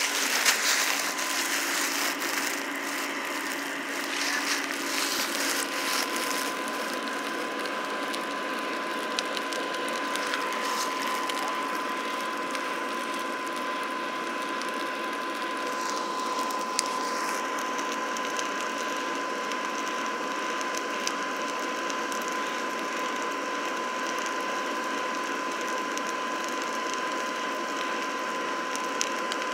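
Forge blower forcing air into a freshly lit coal fire: a steady mechanical whirring with a constant whine and fast, fine clicking, a little unsteady in the first few seconds.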